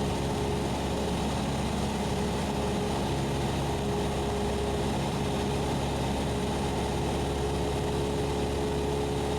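Cessna 172SP's four-cylinder Lycoming engine and propeller running at a steady, even drone, heard inside the cockpit during the approach.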